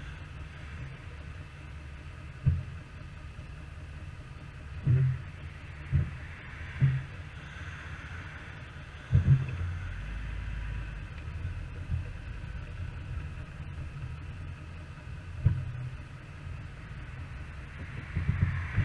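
Jeep driving on a rough off-road trail: a steady low engine and drivetrain rumble, with several sharp thuds as the vehicle jolts over bumps.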